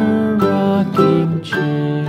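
Background music played on a plucked string instrument like a guitar, a new note about every half second.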